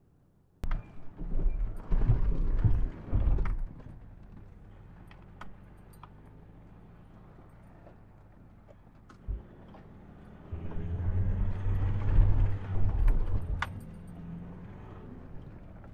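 2015 Ford Ranger 2.2-litre turbo-diesel pickup driving over a rough dirt track, heard from a camera mounted on the truck: a low rumble that starts about half a second in and swells twice, with scattered sharp clicks and knocks of the truck jolting and rattling.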